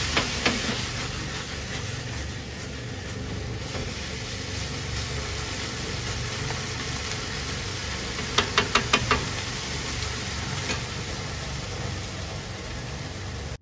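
Udon noodles sizzling steadily in a frying pan as they are tossed with tongs. A couple of sharp clicks of the tongs come just after the start, and a quick run of about five clicks comes a little past halfway.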